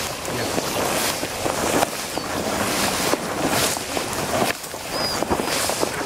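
Wind blowing across the microphone: a steady rushing noise broken by frequent short gusty thumps.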